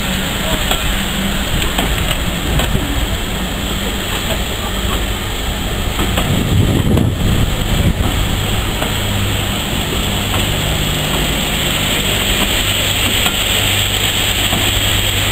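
Train of passenger coaches rolling slowly past, wheels running on the rails with a steady rumble and rattle.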